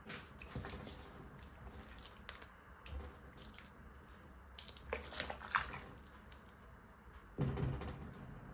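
A glass pot lid lifted off a pan, then a wooden spoon stirring chicken pieces in thin nihari broth: liquid sloshing with scattered clicks and knocks of the spoon against the pan, loudest about five and seven and a half seconds in.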